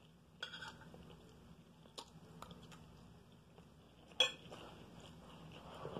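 Metal spoon clinking and scraping against a plate of fried rice, with a few sharp clinks, the loudest about four seconds in, and quiet chewing between them.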